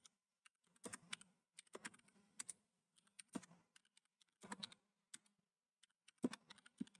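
Faint, irregular keystrokes on a computer keyboard, in small clusters with short pauses, as a line of program code is typed in.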